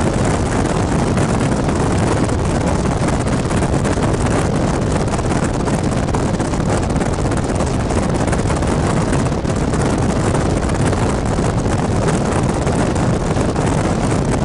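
Steady road and wind noise of a moving car, with wind rushing over the microphone.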